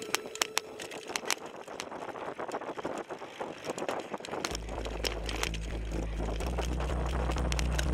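Mountain bike rattling and clattering over a rough forest trail, with many short knocks from the bike. About four and a half seconds in, background electronic music with a deep stepped bass line comes in.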